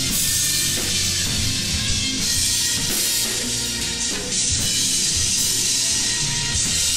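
Drum kit played in a rock style: steady cymbal wash over bass drum and tom hits.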